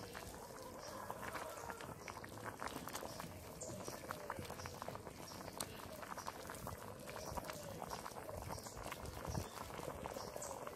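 Faint bubbling and crackling from a cooking pot over an open fire as its contents cook down to dry, with many small pops scattered throughout.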